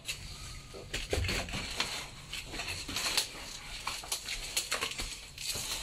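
Irregular rustling and crackling of leaves and branches as a freshly cut tree trunk hanging in a rope is grabbed and shifted by hand, with no saw running.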